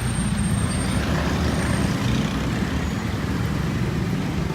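Steady low rumble of heavy vehicles running at a railway level crossing.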